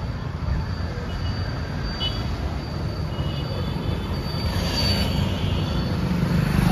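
Road traffic: motorcycles and other vehicles running past in a steady rumble, with a few brief high-pitched tones.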